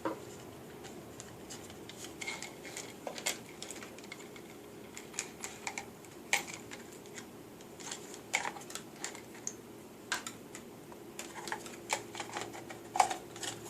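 Irregular small clicks and taps of hands handling taillight wiring and parts, over a faint steady hum.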